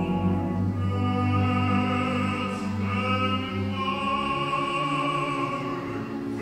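Symphony orchestra playing sustained opera music, with an operatic voice singing over it, heard live and reverberant from the hall's seats.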